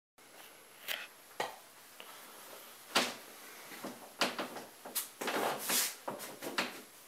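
Handling and movement noises in a small room: a few sharp clicks and knocks, then rustling of clothing as a man moves in front of the camera and turns to face it.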